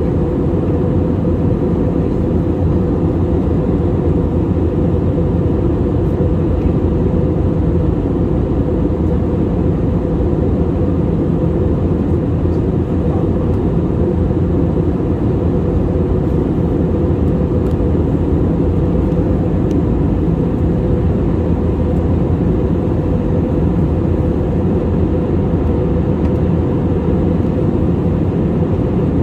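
Steady, unchanging low drone of an Airbus A320neo's engines and airflow, heard inside the cabin from a window seat over the wing.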